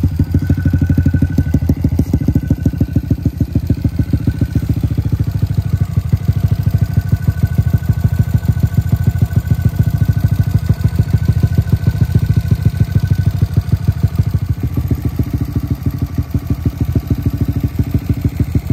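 2022 Honda Grom SP's single-cylinder four-stroke engine idling steadily through a Yoshimura RS-9T full-titanium dual exhaust: a fast, even train of exhaust pulses with no revving.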